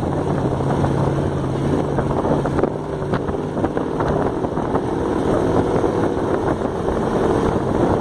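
Dune buggy engine running under way across sand dunes, with wind buffeting the microphone. Its steady hum breaks up after about three seconds into a rougher, uneven sound.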